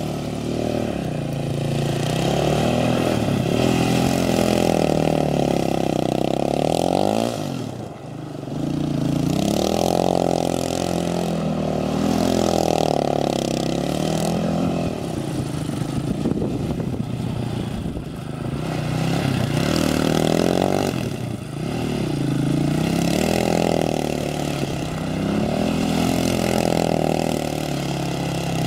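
Triton 450 SuperMoto quad's engine revving up and falling back again and again as the quad slides on loose dirt. The throttle briefly closes about eight seconds in, and again a little after twenty seconds.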